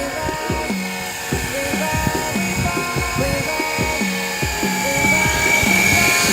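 Background music with a short repeating melody and a steady beat, over the high whine of an electric RC helicopter's motor, which grows louder near the end.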